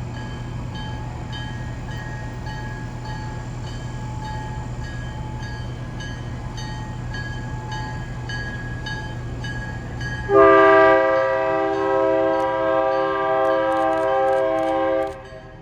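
Diesel-electric locomotive (EMD GP9U) running with a steady low engine rumble. About ten seconds in, its air horn sounds one long chord of several notes, held for about five seconds, then cuts off.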